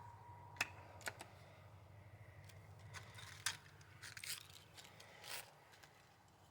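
Faint, scattered clicks and clacks of a Ruger pellet rifle being handled and reloaded between shots, about six in all.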